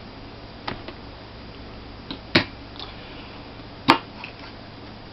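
Laptop hard drive assembly being handled: a few sharp clicks and knocks, the two loudest about two and a half and four seconds in.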